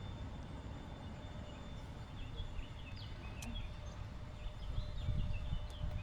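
A bird chirping and twittering in short, wavering phrases from about two seconds in, over a steady low rumble.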